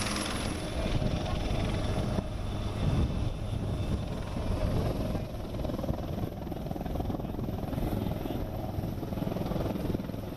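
Low, uneven rumble on the open flight deck of an aircraft carrier at sea, rising and falling in loudness.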